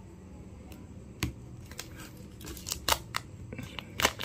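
Thick plastic shrink-wrap on a boxed vape mod being picked at and peeled with the fingers: several sharp clicks and crackles, spaced out, the loudest about a second in, near three seconds in and near the end.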